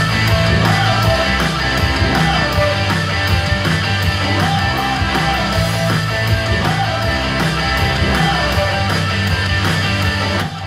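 Music with a heavy bass line played very loud through speakers driven by a Nobsound (Douk Audio) Tone Bluetooth mini amplifier. It cuts off abruptly at the end when the amplifier's protection limiter shuts it off on a bass hit.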